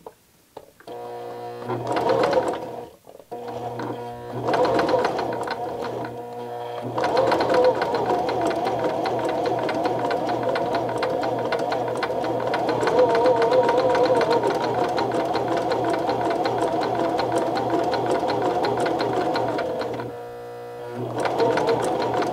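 Electric household sewing machine sewing a tight zigzag (satin) stitch along one side of a buttonhole. It starts slowly with a few short stop-start runs, then runs steadily for about thirteen seconds, pauses briefly near the end, and starts again.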